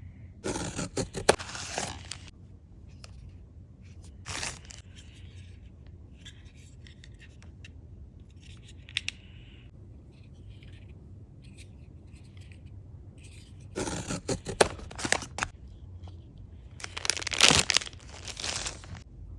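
Blind-box packaging being torn open and handled: bursts of tearing and crinkling about half a second in, again around four seconds in, and through the last five seconds or so, with fainter rustling between them.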